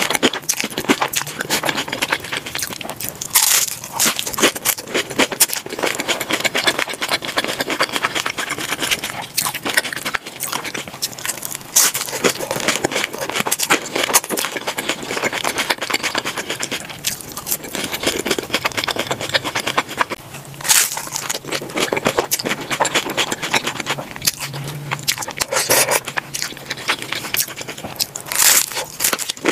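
Close-miked crunching and chewing of hard corn taco shells, some of them orange nacho-cheese shells, a steady crackle of chewing with a loud crisp bite about every eight seconds.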